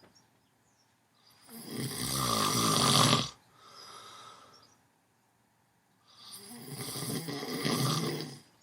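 Slow, deep snoring: two long, rattling snores a few seconds apart, the first followed by a softer breath out.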